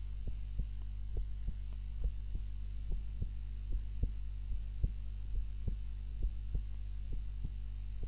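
A sleeping woman's heart beating at rest: a steady rhythm of paired low thumps (lub-dub), over a steady low hum.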